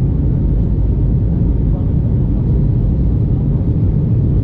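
Steady low noise of engines and rushing air heard inside the cabin of an Airbus A321neo in flight just after takeoff.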